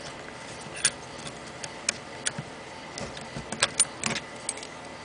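Steel C-clamp being screwed down by hand, with irregular sharp metallic clicks and ticks from the turning screw, its sliding handle bar and the clamped parts as the clamp presses a steel roll pin into the trigger guard.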